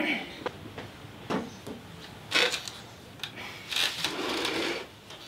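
A heavy blanket rustling as it is pulled and shifted, in several short bursts of handling noise, the longest near the end.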